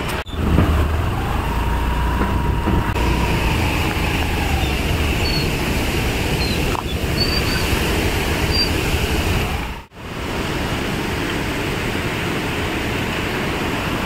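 Steady roar of a waterfall in full monsoon flow, mixed with heavy rain. It drops out briefly twice, about a quarter second in and near ten seconds.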